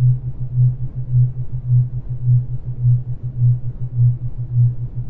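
Synthesized low healing tone: a steady electronic hum that pulses, swelling and fading a bit under twice a second, over a faint hiss.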